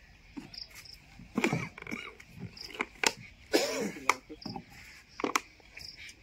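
Insects chirping steadily, with several sharp knocks and a few short murmurs of voice.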